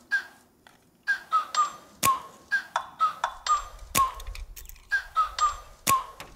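Background music: a looping rhythmic pattern of short percussive ticks with brief whistle-like pitched notes, and a sharper hit about every two seconds.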